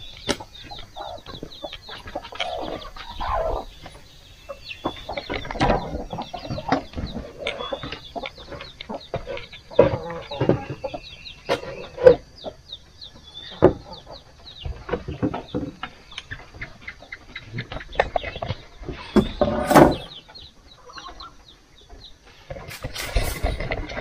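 Chickens clucking on and off, among many short taps and clicks.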